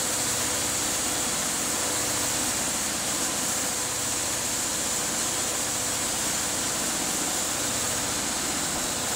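Small petrol engine on a fibre-blowing equipment trailer running steadily at a constant speed, with a steady hiss over it.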